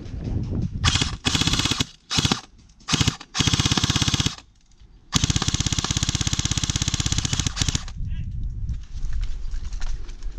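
Airsoft gun firing on full auto: several short bursts of rapid shots, then one long burst of nearly three seconds.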